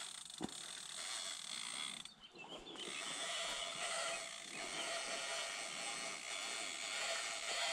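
Salmon fishing reel ratcheting in a continuous rasping buzz as line runs on and off the spool while a hooked salmon is played, with a short break about two seconds in. A single knock sounds just after the start.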